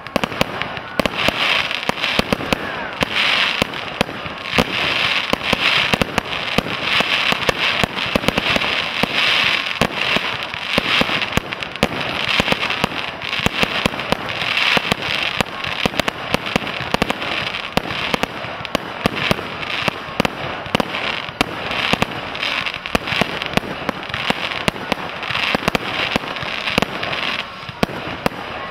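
Fireworks display in full barrage: many sharp bangs in quick, continuous succession over a steady crackling hiss.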